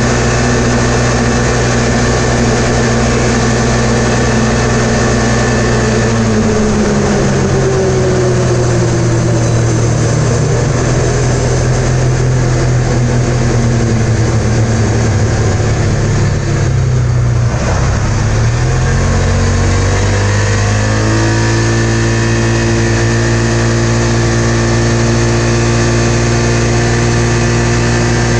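Polaris RZR 570's single-cylinder engine running at high revs. About six seconds in, the note falls as the machine slows. It revs back up about eighteen seconds in and then holds a steady high note, near 7000 rpm, as the Dalton-kitted CVT clutch, run with no set screws in its weights, pulls the machine up to speed.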